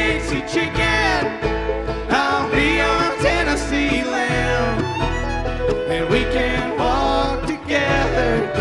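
Bluegrass band playing live: banjo, mandolin and upright bass, with a fiddle.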